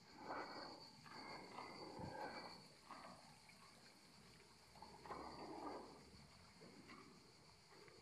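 Faint outdoor ambience: insects keep up a steady high chirring throughout. Soft, irregular scuffs of footsteps and rustling come and go as someone walks along a stone path.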